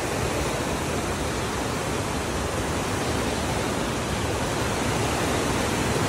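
Waterfall and creek water rushing steadily, an even, unbroken hiss.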